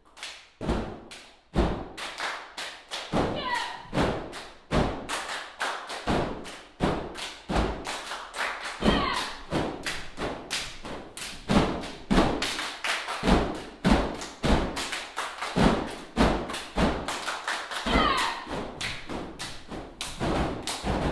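A group of dancers doing body percussion, clapping and slapping in unison at about three strikes a second, with a few short shouted calls.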